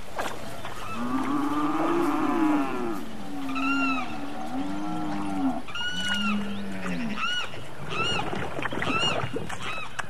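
Cattle mooing: several drawn-out low moos over the first seven seconds, joined from about three and a half seconds in by a series of short, higher-pitched calls coming about once a second.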